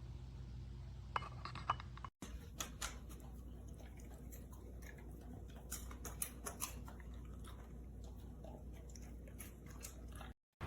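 A dog eating from a ceramic bowl: scattered light clinks and clicks against the ceramic, in two clusters.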